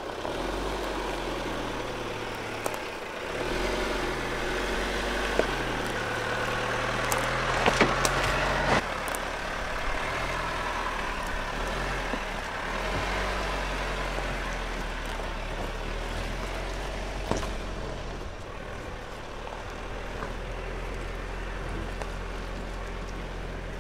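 2017 Jeep Compass crawling over a rocky dirt track, its engine running steadily at low speed, with the revs rising for a few seconds in the first half. Stones knock sharply under the tyres a few times.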